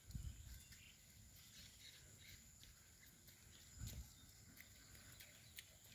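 Near silence: faint outdoor background with two short low bumps, one at the start and one about four seconds in.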